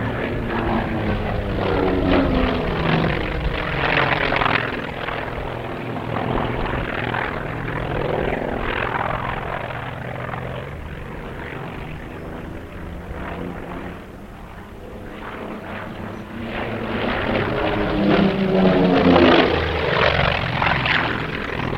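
Propeller airplane flying past with its engine droning, pitch falling as it goes by. A louder second pass comes about three quarters of the way through.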